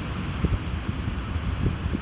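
Ocean surf washing on a beach, a steady hiss, with wind buffeting the microphone in irregular low rumbles and a couple of brief thumps.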